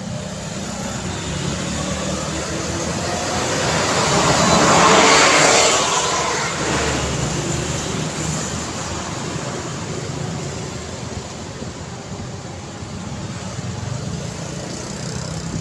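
Road traffic on a busy street, a steady rumble of passing vehicles. One vehicle passes close, growing louder to a peak about five seconds in and then fading.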